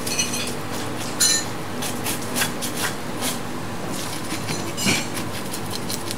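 Knife blade scraping the scales off a whole sea bass on a plastic cutting board: a run of short, irregular scraping strokes.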